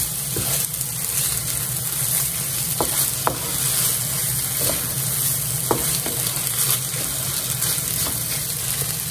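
Corned beef with diced potatoes and onions sizzling in a nonstick frying pan as a wooden spatula stirs and scrapes through it, with a few short clicks of the spatula against the pan.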